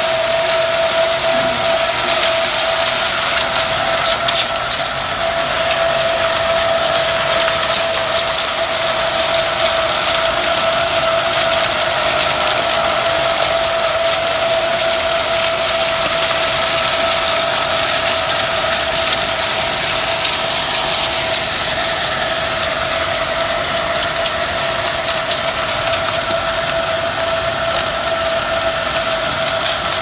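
Electric power trowel running steadily on fresh concrete: a constant motor whine over the hiss of its four blades sweeping the wet surface, with a few brief clicks about four seconds in and again near the end.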